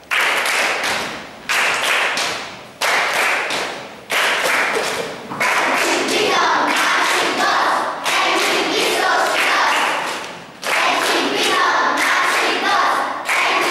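A group of children clapping in a steady rhythm and singing together, with a loud beat about every second and a half. The singing comes in about five seconds in.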